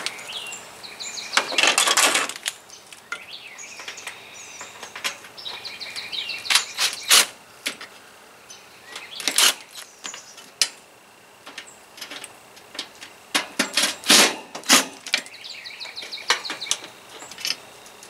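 Cordless drill driving screws into a window air conditioner's sheet-metal top rail in short bursts, with sharp clicks and knocks of metal in between. The screws are stripped and won't tighten. Birds chirp faintly in the background.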